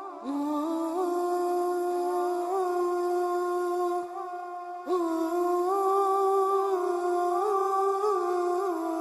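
Wordless vocal 'aah' humming in the nasheed style, with no instruments: long held notes with small melodic turns, in two phrases, the second entering about five seconds in.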